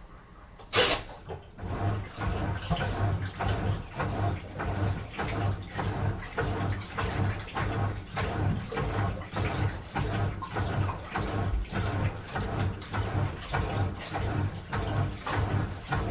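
Washing machine starting a wash phase: a sharp knock about a second in, then water sloshing in the turning drum in regular surges, about three every two seconds.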